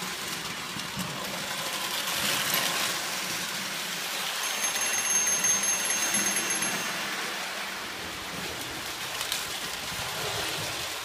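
Lionel O gauge toy electric train running on tinplate track, a steady whirring rattle that swells as the locomotive passes, with an electric crossing warning bell ringing.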